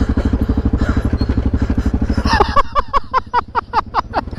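ATV engine running with a steady low pulse. About halfway through the engine fades back, and a quick series of short, falling squeaky chirps, speeding up, takes over to the end.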